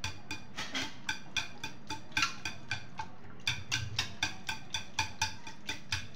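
Wire whisk clicking against the sides of a metal pot as it breaks up lumps of chilled malai (cream), in quick regular strokes of about three to four a second.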